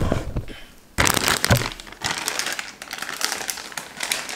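Plastic bag of shredded mozzarella crinkling as it is handled. It starts suddenly about a second in and crackles on irregularly after that.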